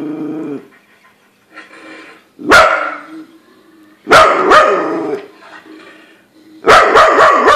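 A dog barking in loud bursts: one bark about two and a half seconds in, a couple more around four seconds, and a quick run of barks near the end.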